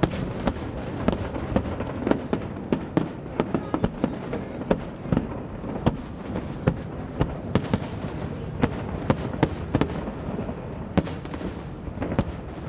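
Aerial fireworks going off in a rapid, irregular string of sharp bangs over a continuous low rumble.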